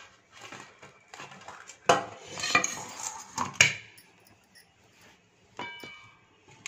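Stainless steel plate and cake tin clattering against each other as the tin is turned out onto the plate, with two sharp clanks in the middle, then a short metallic ring near the end.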